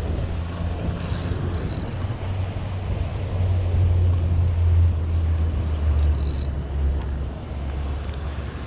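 Spinning reel being cranked while a hooked fish is played, with short whirring bursts about a second in and about six seconds in, over a steady low rumble on the body-worn microphone.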